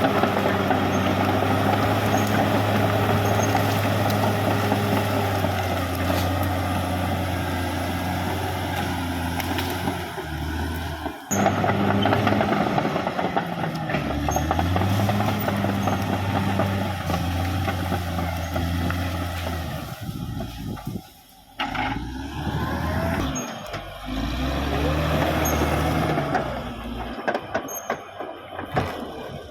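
Caterpillar D6R XL bulldozer's diesel engine running under load, its pitch dipping and rising several times. The sound cuts off briefly about 11 and 21 seconds in.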